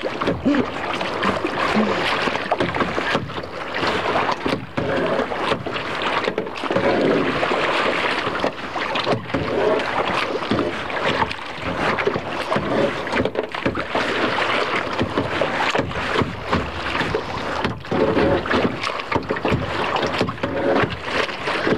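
Choppy lake water splashing and slapping against a kayak's hull, with paddle strokes and wind on the microphone.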